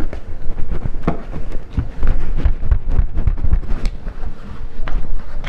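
Irregular knocks and clicks from a car's plastic door trim being handled, with a steady low rumble underneath.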